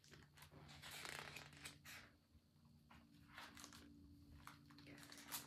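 Near silence with faint, scattered paper rustles as a picture book's pages are handled and turned.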